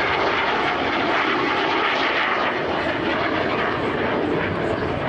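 Romanian Air Force MiG-21 fighter's single turbojet engine in flight, a loud, steady jet noise that holds its level throughout.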